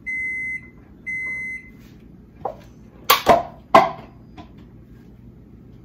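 Electronic kitchen appliance beeping: two even, high beeps about half a second long, a second apart. A few seconds in come three sharp clattering knocks, the last two the loudest.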